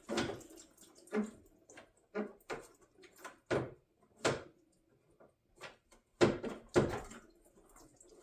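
Irregular knocks and clinks of tools and parts being handled while the radiator's lower hose is worked loose, a dozen or so sharp strikes with the loudest two near the end.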